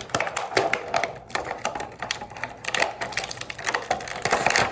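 Hard plastic toy packaging being handled while the figure's accessory is taken out, giving a dense run of irregular clicks and crackles.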